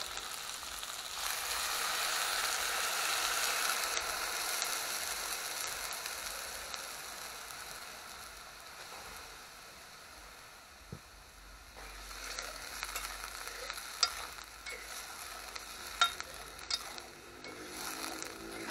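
Pepsi poured into onions and peppers frying in hot oil in a pot: a loud sizzle surges about a second in and slowly dies down. In the second half a fork stirs the pot, clinking against the metal a few times.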